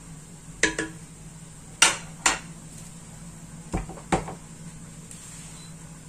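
A spoon knocking against a stainless steel cooking pot while rice is stirred, six sharp clinks in three pairs, over a steady low hum.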